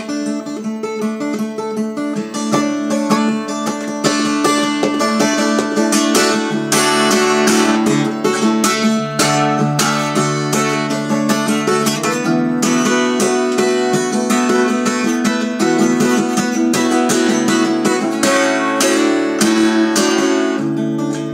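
Solo acoustic guitar in open C tuning: low bass notes ring under quick strummed and picked chords, busiest in two spells, mid-way and near the end.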